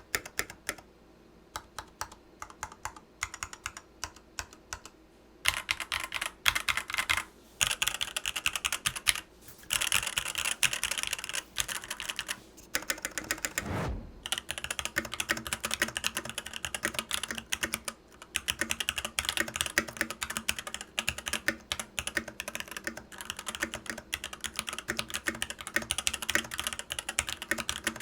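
Typing on a Varmilo Sea Melody keyboard with EC V2 Daisy electro-capacitive switches: a few single keystrokes, then fast continuous typing from about five seconds in. Near the middle the typing stops briefly, with a low thud, and goes on again on the bare desk without the desk mat.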